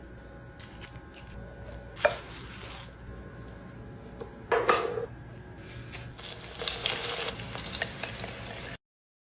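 Kitchen cooking sounds: two sharp knocks of a utensil, then a hissing, crackly stretch like food sizzling or being stirred, which cuts off abruptly near the end.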